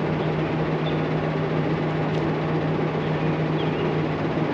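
Diesel engine of a semi-truck running at idle: a steady hum with a constant low tone that drops away at the very end.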